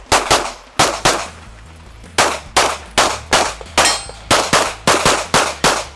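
Rapid handgun shots in quick pairs and strings, about fifteen in all, with a pause of about a second between the first few and the rest. A steel target rings briefly when hit about four seconds in.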